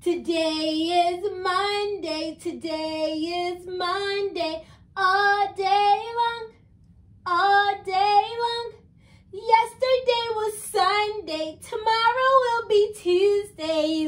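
A woman singing a children's song in a high, bright voice, in short held phrases with brief breaks between them and no instruments heard.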